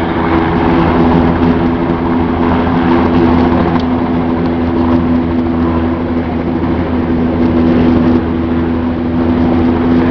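Helicopter close by, its rotor beating fast and steadily under a steady engine whine as it comes in to land.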